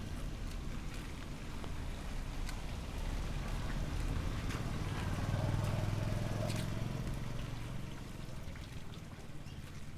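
A motor vehicle's low engine hum grows louder, is loudest about halfway through, then fades as it passes by. Light rain drips and ticks throughout.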